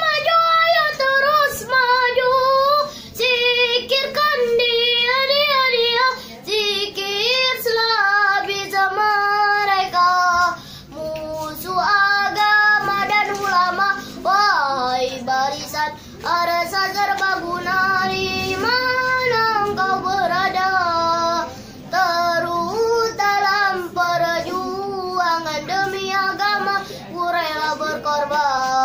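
A young boy sings a sholawat, an Islamic devotional song, unaccompanied, in a solo voice. He sings long, ornamented phrases whose pitch wavers and slides, with short gaps between them.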